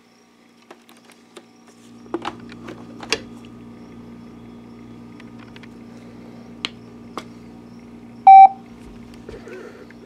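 Optoma WU515 DLP projector being powered up: a few handling clicks as the power cord goes in and the button is pressed, and a steady low hum that comes up about two seconds in. About eight seconds in, the projector gives one short, loud beep as it acknowledges the power button.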